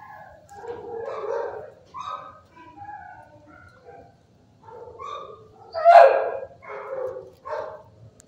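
Dogs barking and yipping in a run of short calls, with the loudest bark about six seconds in.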